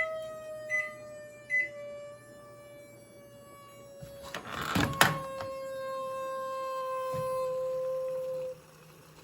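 Steam whistle in a Screaming Chef microwave meal tray, screaming as the meal nears done: a high, steady whistle that slowly sinks in pitch. Three short high beeps sound over it in the first two seconds, a rush of noise and a sharp click break in about five seconds in, and the whistle then cuts off suddenly about a second before the end.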